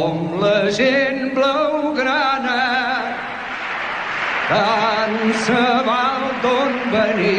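Voices singing together in chorus, holding notes with vibrato. The singing comes in two phrases, with a short dip about three seconds in.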